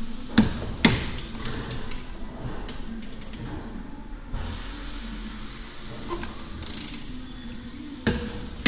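Ratchet torque wrench tightening the connecting-rod cap nuts of a VAZ 21083 engine to about 54 Nm, ratcheting with sharp metallic clicks, two close together near the start and another near the end.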